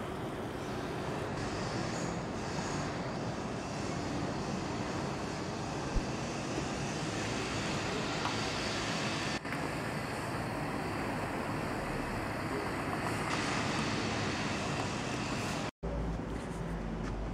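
Steady rushing outdoor background noise. It drops out for an instant near the end, then comes back with a stronger low rumble.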